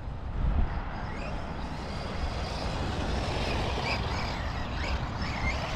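Losi Lasernut U4 RC rock racer's brushless motor and gear drivetrain running on 4S as it drives across grass, with a faint whine that rises and falls with the throttle over a steady low rumble. No clicking comes from its freshly replaced gears.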